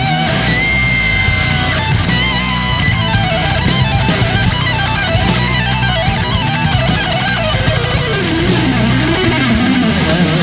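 Background rock music with electric guitar: a wavering lead guitar line over low rhythm guitar and steady drum hits.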